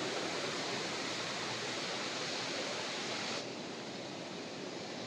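Waterfall's rushing water, a steady hiss that drops a little in level about three and a half seconds in.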